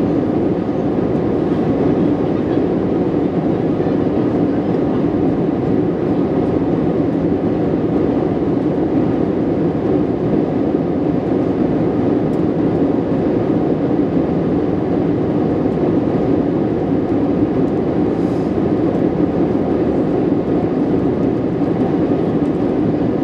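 Jet airliner cabin noise in cruise flight: a steady, even drone of engines and rushing air heard from inside the cabin.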